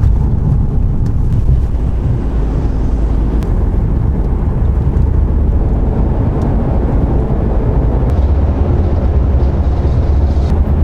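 Ford Mustang driving at speed, heard from inside the cabin: a steady low engine and road rumble with tyre noise.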